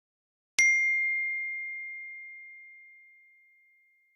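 A single bell-like ding struck about half a second in: one clear, high ringing tone that fades away slowly over about three seconds.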